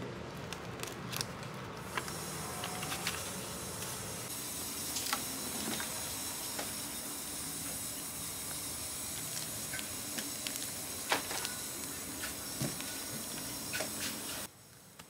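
Steady hiss with scattered light taps and clicks as hardbound books are handled and pulled from a shelf. The hiss cuts off abruptly just before the end.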